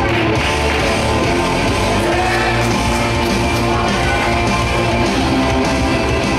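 Loud rock music with guitar playing as a wrestler's entrance theme, steady in level and dropping away right at the end.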